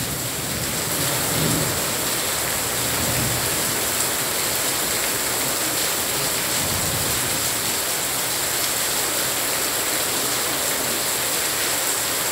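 Heavy rain falling steadily, a dense even hiss of drops on the street and leaves, with a low rumble in the first few seconds.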